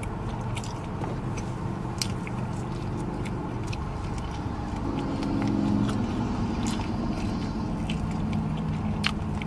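Close-up mouth sounds of biting and chewing meat off a barbecue rib bone: many wet smacking clicks over a steady low rumble, with a low hum coming in a few seconds in.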